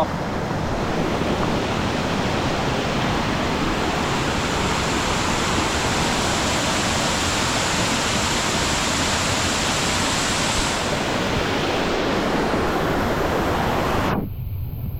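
Steady rush of a waterfall's falling water heard from the top of the falls. A little before the end it suddenly turns duller and quieter.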